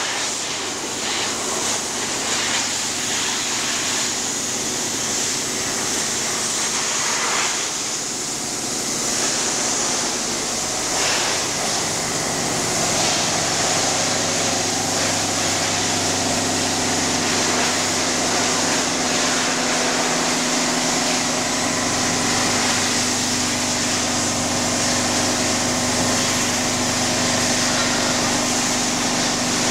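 Densin high-pressure washer running: a loud, steady hiss of the water jet striking steel grating, with the unit's electric motor and pump humming steadily. The hum becomes more prominent about halfway through.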